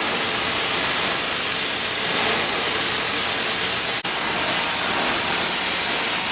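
Hand-held cutting torches hissing steadily as they cut through old steel hull plates overhead, with a momentary dropout about four seconds in.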